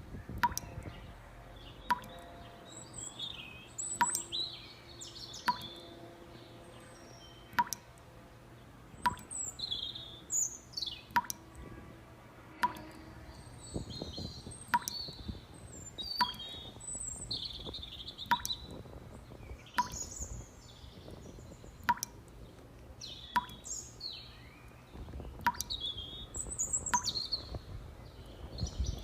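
Small birds chirping and twittering in a busy, overlapping chorus of short calls. A sharp click or plop sounds every second or two.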